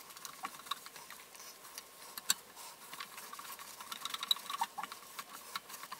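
Faint scrubbing of a cloth rag wiping a bare aluminum printer bed plate, with scattered light clicks and ticks.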